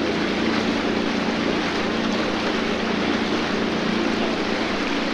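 Small canal boat's engine running steadily under way, a constant low hum over an even rushing wash.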